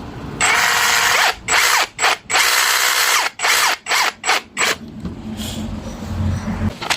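A cordless power tool's motor running in a series of short, uneven bursts, starting and stopping repeatedly and dying away in the gaps, then quieter handling noise after about five seconds.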